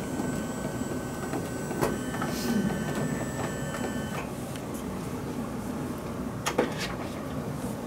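Electric hospital bed motor running steadily as the head section is raised, stopping about four seconds in. A couple of sharp clicks follow near the end.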